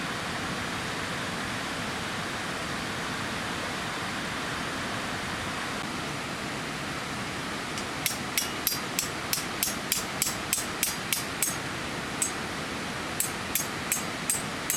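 Steady hiss of heavy rain. About halfway through, sharp high-pitched chirps start up and repeat about three times a second, pausing briefly before going on.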